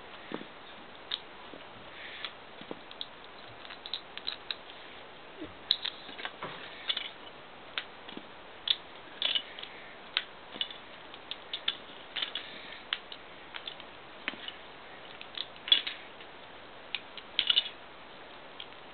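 Plastic Lego bricks being pulled apart and handled: irregular sharp clicks and small clacks, several a second at times, with a few louder snaps.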